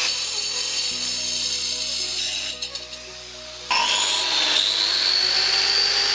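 Makita angle grinders with diamond discs cutting into a concrete block. The small 125 mm grinder cuts and stops about two seconds in. After a short lull, the large 230 mm grinder starts about four seconds in and cuts with a high whine that slowly rises in pitch. Background music plays underneath.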